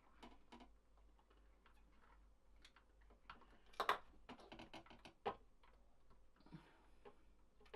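Faint, irregular light clicks and taps of small tools and wires being handled during soldering, with a louder cluster of clicks about four seconds in.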